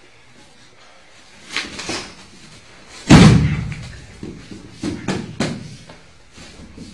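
A person thrown onto a padded martial-arts mat, the body landing with one loud thud about three seconds in. Three quick sharp slaps follow as he is pinned.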